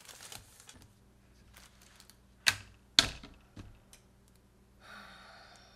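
Two sharp knocks about half a second apart, amid faint scattered clicks, followed near the end by a brief soft hiss.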